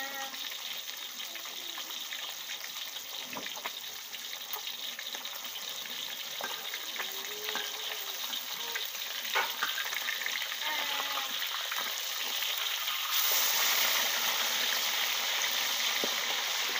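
Two whole barramundi deep-frying in oil in a steel wok, a steady sizzle. A ladle knocks lightly against the wok a few times, and the sizzling grows louder about 13 seconds in as the fish are moved in the oil.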